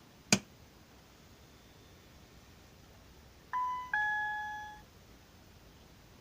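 A single sharp click, then a few seconds later a two-note descending electronic ding-dong chime, the second note ringing on and fading out.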